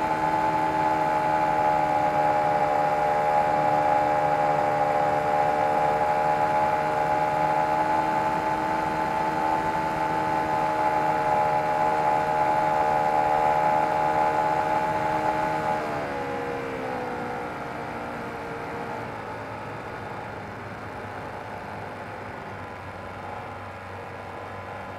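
O.S. FT-120 Gemini II twin-cylinder four-stroke glow engine of a model plane, heard from the onboard camera, running steadily at cruise throttle. About two-thirds of the way through it is throttled back: the pitch falls and it settles to a quieter, lower running as the plane sets up for landing.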